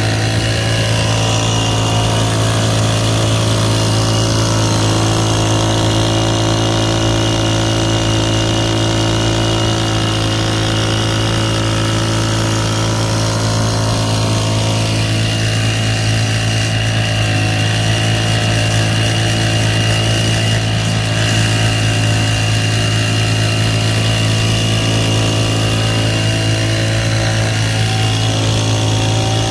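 Small petrol engine of a Sprayman spray pump running steadily at constant speed while it drives a high-pressure water jet, with a thin high whine over the engine note.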